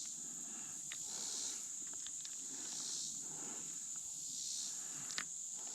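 Steady high-pitched chorus of insects trilling along the creek, swelling and fading about every second and a half, with a few faint clicks.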